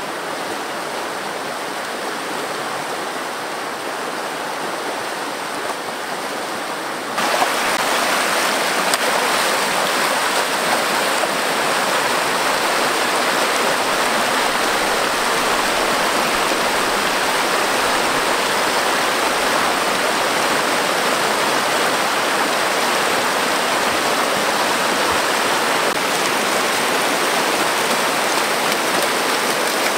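Stream water rushing down a shallow rocky cascade of rapids, a steady rush of white water. About seven seconds in it turns suddenly louder and brighter.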